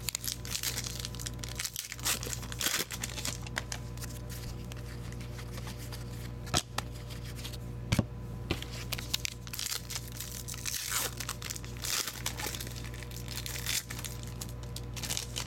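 A foil trading-card pack wrapper being crinkled and torn open by hand, with scattered crackling and a few sharper snaps, over a steady low hum.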